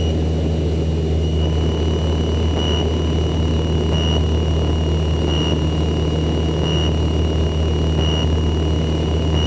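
Light propeller aircraft's engine and propeller droning steadily in cruise, heard inside the cockpit, with a faint high whine that pulses about every second and a half.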